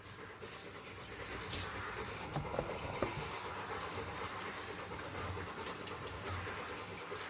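Shower water running steadily with an even hiss while a dog is being washed.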